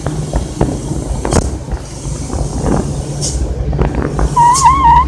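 Motor vehicle running steadily with road noise, broken by several sharp knocks and a few short hisses. About four seconds in, a loud wavering, whistle-like high tone begins.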